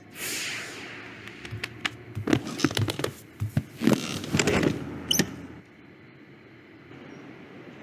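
Animated-film Foley effects: a whoosh at the start, then a few seconds of quick clicks, taps and scuffles, settling to a faint steady background hum.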